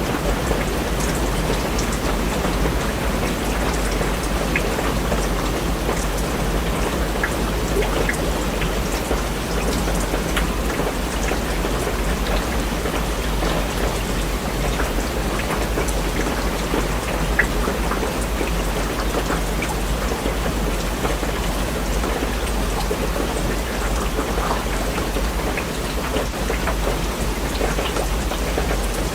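Steady rain falling, with many single drops ticking sharply on a surface over an even hiss.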